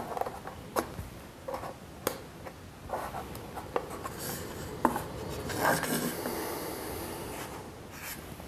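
Thin CA hinge strips being pushed and slid into slots cut in a balsa control surface, with fingers handling the wood: scattered small clicks and taps and a stretch of rubbing about halfway through.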